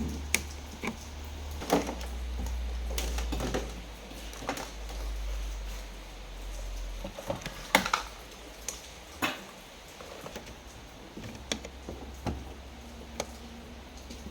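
Irregular clicks, taps and knocks of small parts and tools being handled, over a low hum.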